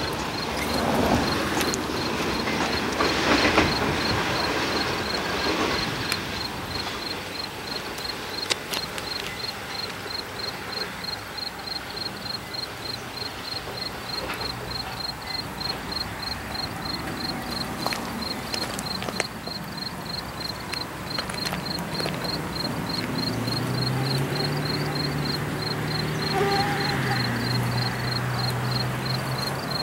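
Crickets chirping in a fast, even pulse while CSX diesel freight locomotives approach; their engine drone steps up in pitch about three-quarters of the way through and drops back near the end. A broad rushing noise fills the first few seconds and fades.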